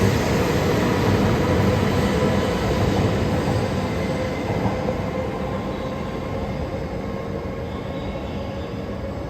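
Tohoku Shinkansen Hayabusa bullet train running, a steady rushing rail noise with a faint whine that slowly fades as the train moves away.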